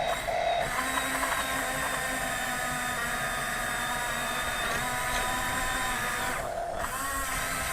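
Small electric motors of radio-controlled construction toys whining steadily, with the pitch shifting a little as they work and a short break about six and a half seconds in.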